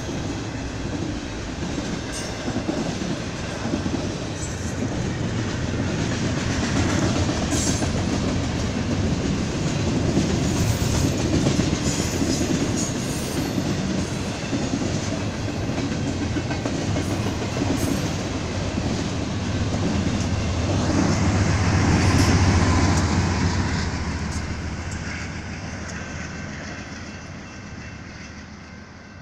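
BNSF double-stack container freight train rolling past, its steel wheels rumbling and clattering on the rails. About twenty seconds in, the low hum of a diesel locomotive at the rear swells to the loudest point. The sound then fades steadily as the end of the train draws away.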